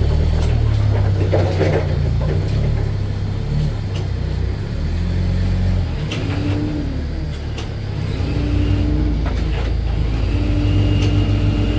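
Large truck's engine running at low revs while the truck is manoeuvred, its low drone shifting in pitch, with a few short rising-and-falling whines in the second half.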